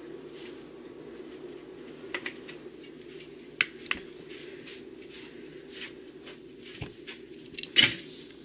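Kitchen tongs clicking and pieces of corn on the cob set down in a plastic bowl of sliced sausage, a few scattered light knocks with the loudest near the end, over a steady low hum.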